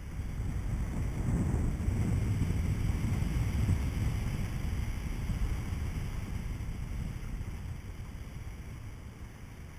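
Wind rushing over the microphone of a camera on a paraglider in flight, a low rumbling buffet. It swells about a second in and eases off through the second half.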